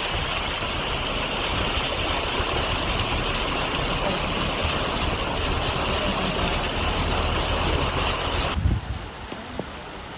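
Loud, steady rushing noise of cyclone weather (rain, wind or running water), which cuts off abruptly near the end with a brief thump, leaving a quieter, duller rush.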